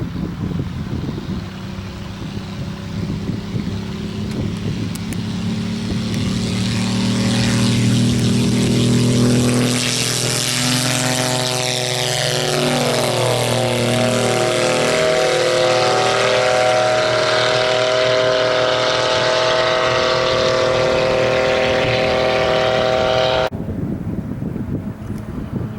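Piston-engine propeller airplane running at high power as it approaches and passes close by, a steady engine-and-propeller note that grows louder over the first several seconds and shifts in pitch as it goes past. The sound cuts off abruptly near the end, leaving wind noise.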